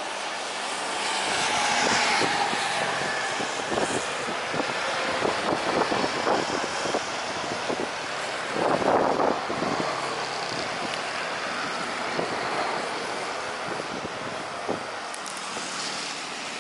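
Airbus A320's CFM56 jet engines at takeoff power as the airliner rolls and lifts off. The noise swells within the first couple of seconds, crackles roughly through the middle and is loudest around nine seconds in, then slowly fades as the aircraft climbs away.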